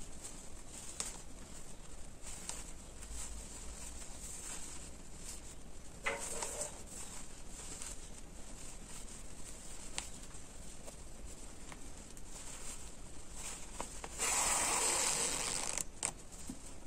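Fabric of a dress and sleeve rustling and sliding under the hands as the sleeve is gathered and pinned into the armhole, with faint small clicks. A louder rustle comes about 14 seconds in and lasts nearly two seconds.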